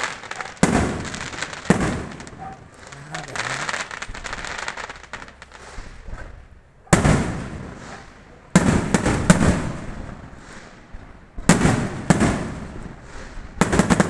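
Fireworks exploding: sudden sharp bangs every second or two, some in a quick cluster about nine seconds in, each trailing off in a crackling rumble. A quieter lull comes between about two and seven seconds in.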